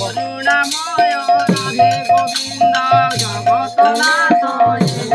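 A live kirtan group singing a devotional chant, with small brass hand cymbals clashing and ringing on a steady quick beat and a low sustained note underneath.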